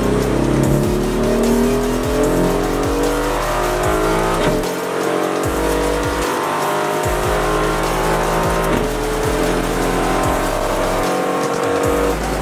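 Aston Martin Vantage GT4's 4.0-litre twin-turbo V8 heard from inside the cabin under hard acceleration on track, its note climbing steadily in pitch and breaking off sharply a few times at gear changes.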